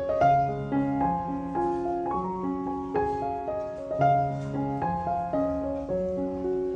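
Background piano music: a slow, gentle piece with held notes and chords changing about every half second.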